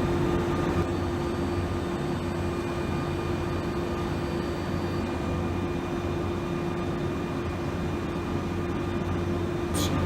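Waldrich Coburg PMC 3000 portal milling machine running: a steady machine hum with a constant mid-pitched tone over it. There is a short sharp click near the end.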